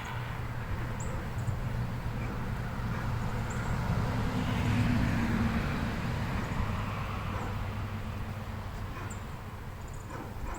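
Honeybees humming on the comb of an open hive, under a low rumble and rush that swells to a peak midway and then fades.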